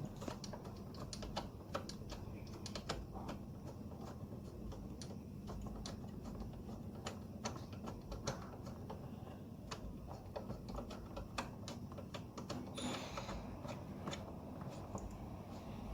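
Scattered light clicks and taps of hand tools and engine parts being handled, irregular rather than rhythmic, with a cluster of louder clicks near the end, over a faint steady low hum.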